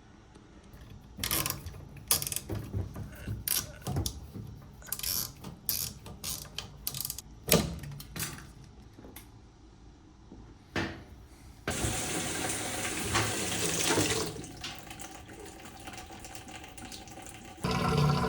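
Top-load washing machine: a few clicks and knocks, then about two-thirds of the way in water suddenly starts rushing into the tub as it begins to fill. Near the end a louder, steady hum joins the water.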